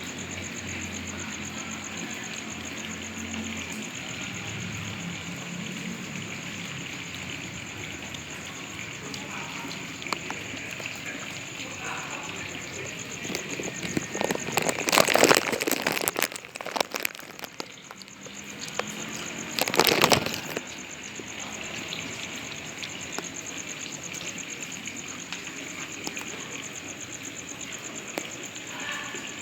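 Steady rain, with a constant high thin whine over it. About halfway through come two short, much louder spells of rushing noise, a few seconds apart.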